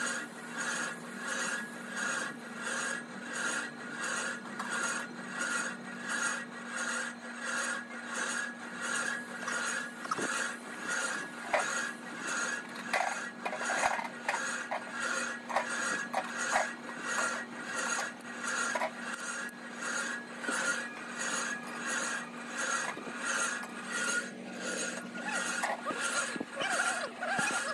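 Steady rhythmic rasping at about two beats a second over a low hum. About halfway through come sharper clicks and scrapes of metal hand tools working a sand casting mould for a brake drum.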